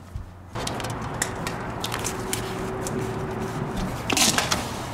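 Scraping and rattling of an old metal Suburban RV tank water heater being slid out of its wall compartment, a continuous rough rasp with small knocks, and a sharper scrape near the end.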